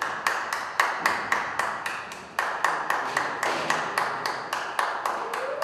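Sharp percussion strikes from a brass band's drummer keeping a steady beat, about four a second, each one echoing in a large reverberant church.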